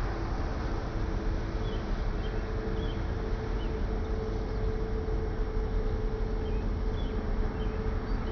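Steady low hum and rumble of the 690 ft lake freighter Herbert C Jackson's machinery as the ship passes, with a steady mid-pitched drone and wind on the microphone. A few faint, short bird chirps.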